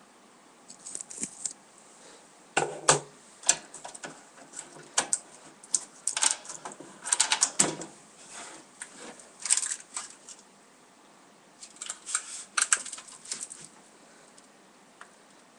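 Irregular clicks, taps and rattles in small clusters with short pauses, from a Sky digital set-top box being handled while its insides are shown.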